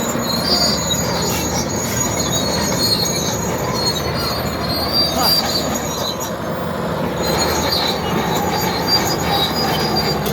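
Komatsu D80A crawler bulldozer working, its diesel engine running under load while its steel tracks squeal and rattle. The high, thin track squeal comes and goes over a steady, loud machine noise.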